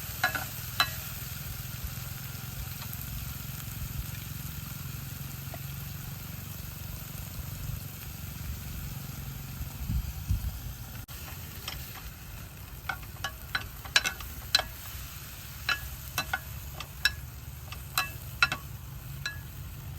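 Food sizzling as it is stir-fried in a pan, over a steady low rumble. In the second half come a series of sharp, irregular clinks of a metal utensil against the pan.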